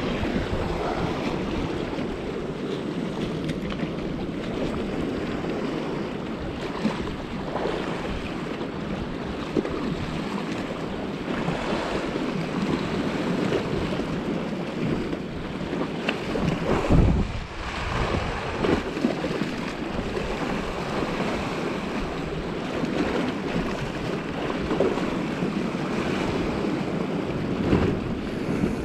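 Sea waves washing and splashing against a rock ledge, with wind buffeting the microphone; a louder gust or splash comes a little past halfway.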